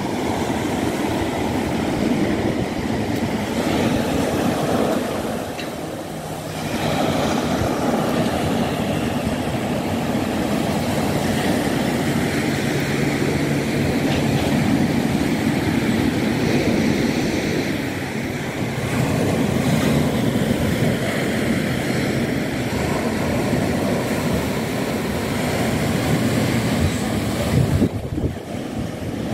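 Steady wash of sea surf breaking on the beach, mixed with wind on the microphone.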